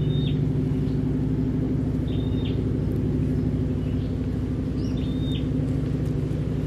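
A steady low mechanical hum, like a motor or engine running, with a bird repeating a short, flat, high whistled note about every two to three seconds.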